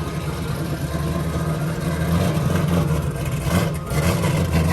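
The Chevelle's 540-cubic-inch big-block V8 running at a lumpy idle, getting a little louder about two seconds in.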